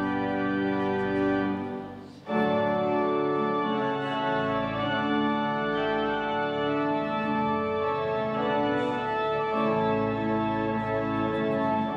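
Organ playing slow, long-held chords. The sound dips briefly about two seconds in, then a new chord comes in.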